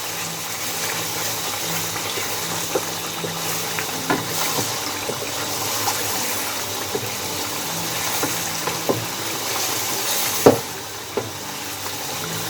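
Chicken and spice masala sizzling as it fries on high flame in a karahi, with a spoon now and then knocking and scraping against the pan; the sharpest knock comes near the end.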